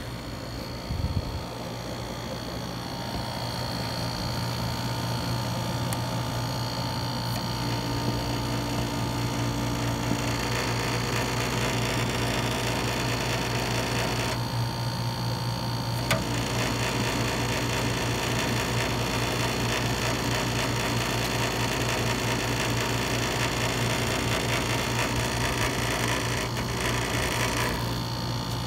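Dometic rooftop RV air conditioner running, with a steady compressor and fan hum under a buzzing, rattling racket from the compressor's copper refrigerant lines vibrating against the unit. The rattle drops away briefly about halfway through and again near the end.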